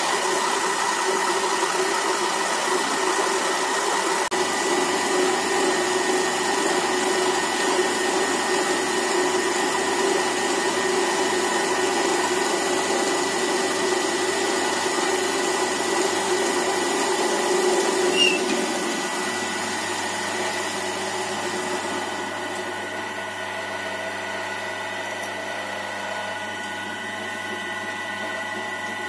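Wood lathe running, with a hand-held turning tool cutting grooves into a spinning wooden spindle. About two-thirds of the way through the cutting noise drops away and the level falls, leaving a quieter steady machine hum.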